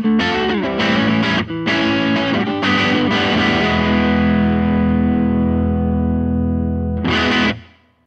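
Distorted electric guitar music: a few rhythmic chord strikes, then one long chord left ringing for about three seconds, and a last short chord near the end before it stops.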